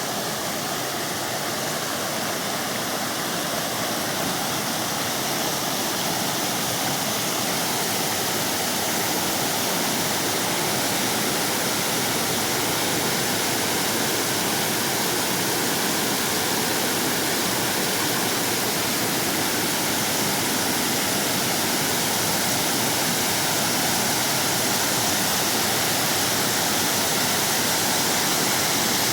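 Waterfall: the steady, loud rush of falling water.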